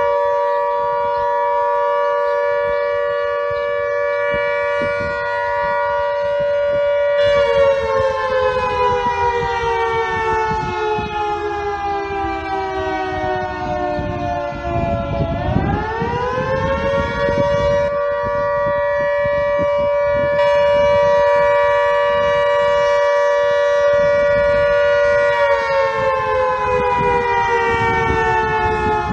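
Fire brigade callout siren wailing: it holds a steady note, slowly winds down in pitch, winds quickly back up, holds again, then begins to wind down once more.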